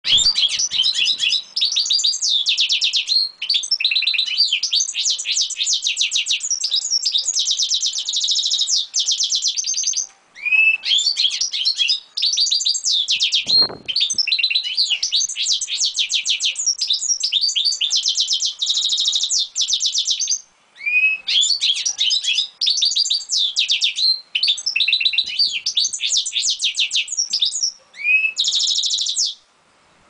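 Goldfinch × canary mule singing: long, fast runs of twittering, trills and chattering notes, broken by a few short pauses.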